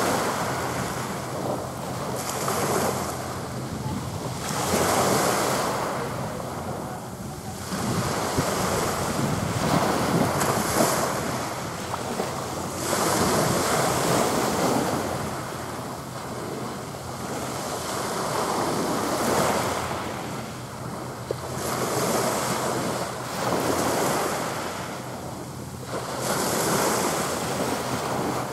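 Small waves washing onto the shore, swelling and fading every few seconds, with wind buffeting the microphone.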